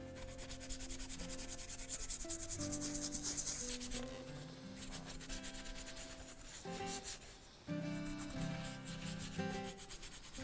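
Toothbrush bristles scrubbing a metal part of a Stanley Bedrock hand plane in rapid back-and-forth strokes, with brief pauses about four and seven seconds in. Soft background music with held notes plays underneath.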